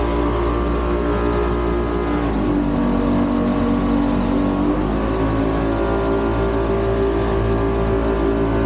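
An aluminum river boat's engine running at speed over the rush of water and wind. The engine note drops a little about two seconds in and climbs back about halfway through.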